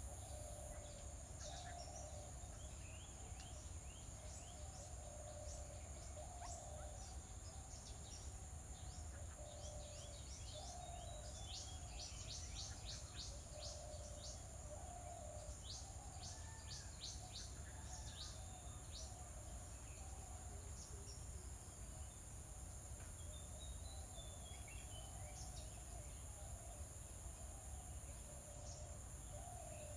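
Faint outdoor ambience: a steady high-pitched insect drone with scattered short bird chirps, including a quick run of chirps near the middle.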